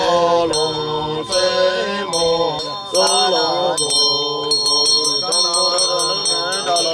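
A voice chanting in long held, gliding notes, like a mantra. From about halfway, a small bell rings over it in quick, even strokes, about five a second.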